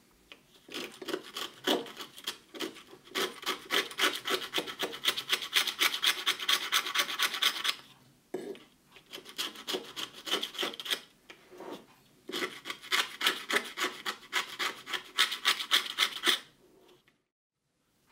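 Sandpaper rubbed quickly back and forth by hand over the edge of a woofer cone, rasping off the remains of the old foam surround and glue. It comes in three spells of fast strokes, with short pauses between them.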